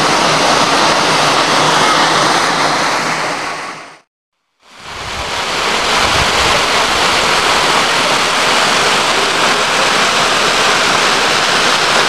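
Steady rush of a tall waterfall pouring into its plunge pool. The sound fades out to silence about four seconds in and fades back in a second later.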